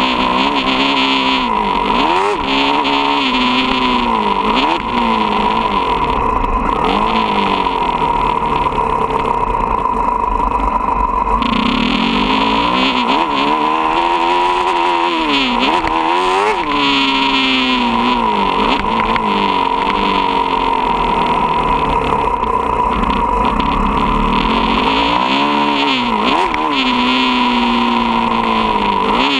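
Motocross dirt bike engine heard up close, its revs rising and falling over and over as the throttle is opened and closed through the track's straights and turns, with a short easing off around a third of the way in before it pulls hard again.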